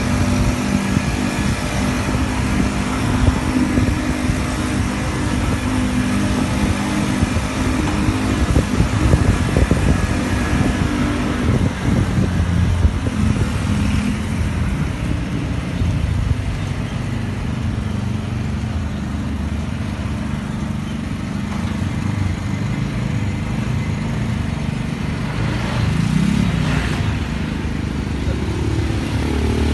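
Minivan powered by a motorcycle engine running on the move, mixed with the following motorbike's engine and road noise. The hum is steady with small changes in pitch, and an engine revs up and back down briefly near the end.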